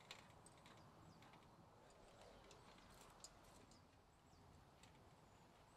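Faint, irregular scraping strokes of a block of cheese rubbed on a metal box grater, with a few sharper ticks. A few faint bird chirps sound in the background.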